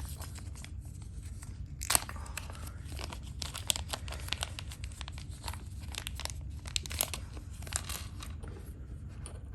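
Irregular crinkling and small clicks from hands handling a fidget slider, with one sharper click about two seconds in.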